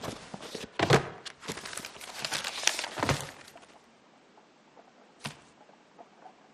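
A quick clatter of knocks and rustling for about three seconds, loudest about a second in, then a single sharp knock a couple of seconds later.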